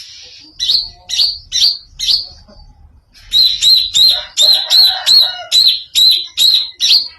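Green leafbird (cucak ijo) giving an unusual call of sharp, high repeated notes: a few spaced notes in the first two seconds, then a fast run of about a dozen louder notes, roughly three a second, that stops just before the end.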